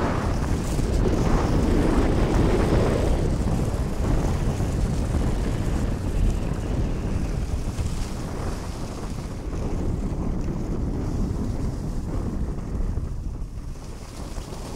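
Wind buffeting the microphone on a fast downhill run on snow, a continuous low rumble, with the hiss of sliding over the snow that is strongest in the first few seconds.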